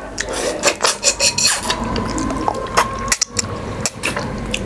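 Close-up eating sounds: irregular chewing, sucking and scraping clicks from eating beef trotters (paya) and nehari.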